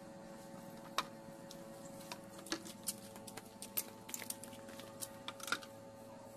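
Faint, irregular clicks and small snaps from hands picking at leafy garden plants, over a steady low hum.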